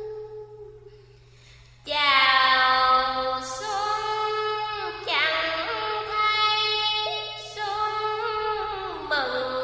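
A woman's voice chanting sung verse in long held notes that slide and waver in pitch. It drops away about a second in and comes back strongly just before two seconds.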